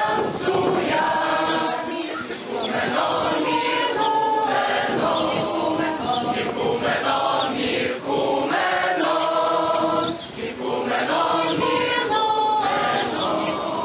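A choir singing a Yiddish song, with many voices held together in long sung notes.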